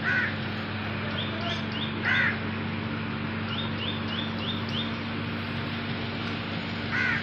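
Crows cawing: three loud caws, one at the start, one about two seconds in and one near the end. Between them, small birds chirp in quick runs of four or five notes, over a steady low hum and outdoor background noise.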